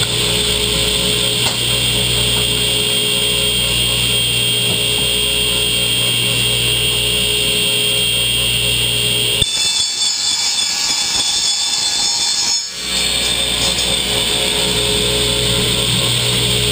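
Ridgid radial arm saw's motor running steadily, a high whine over a low hum. For about three seconds past the middle the low hum cuts out abruptly, then comes back.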